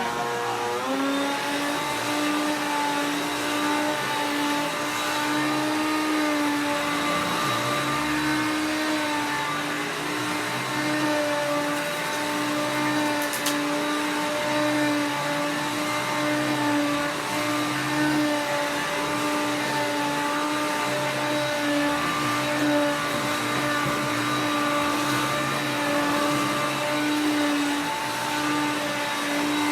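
Hoover Concept 2 electronic self-propelled upright vacuum running loud on its high setting while vacuuming shredded paper from carpet: a steady motor whine whose pitch shifts about a second in, with a slow pulsing underneath.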